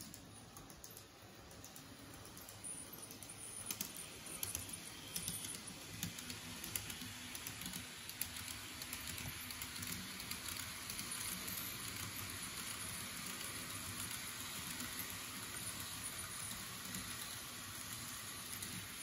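Model Odakyu 50000 VSE Romancecar train running on its track: rapid, irregular clicking of the wheels over rail joints together with a rushing hiss. The hiss grows louder over the first several seconds, then holds steady.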